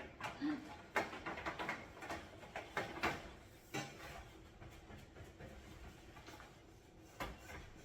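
Scattered light clicks and taps of objects being handled, irregular and fairly faint.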